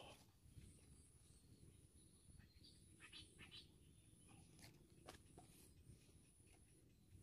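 Near silence: faint outdoor background with a few soft ticks and some faint short chirps about three seconds in.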